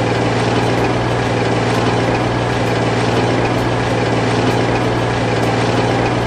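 An engine idling at a steady, unchanging speed.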